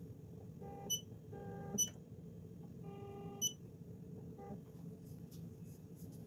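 Ricoma EM1010 multi-needle embroidery machine jogging its hoop frame in short moves to line up the design: the frame drive whines in steady tones about half a second at a time, four times, with three short high beeps from the control panel.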